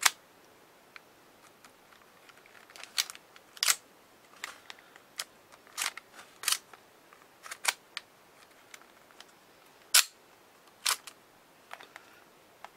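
Brother KH801 knitting machine carriage being handled: a dozen or so sharp, irregular mechanical clicks and clacks as its parts and settings are worked by hand, the loudest about ten seconds in.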